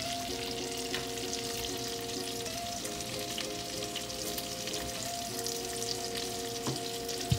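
Steady sizzling of food cooking on the stovetop: a saucepan of butter-and-cream Cajun pasta sauce heating while andouille sausages fry in a pan beside it. Underneath are soft held music notes that change every few seconds.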